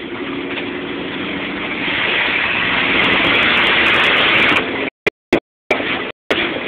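Car engine and road noise heard from inside the cabin, building louder over the first three seconds and then running hard. The sound cuts out briefly a few times near the end.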